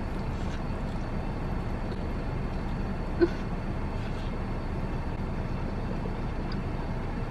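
Steady low vehicle rumble heard inside a car's cabin, with one brief short blip about three seconds in.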